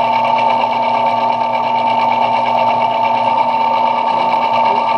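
Belt-driven metal lathe running with a steady, unbroken whine.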